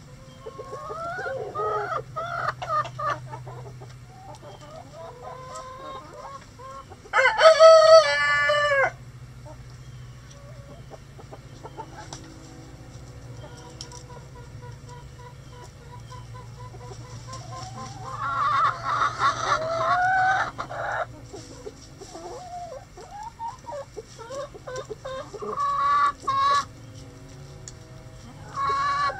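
Bantam roosters crowing in a backyard flock. The loudest crow comes about seven seconds in and a second long one comes past the middle, with hens clucking and calling throughout.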